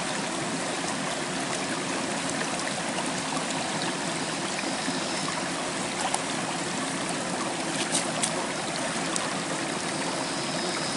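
Shallow rocky stream running steadily over stones, with a few faint clicks between about six and nine seconds in.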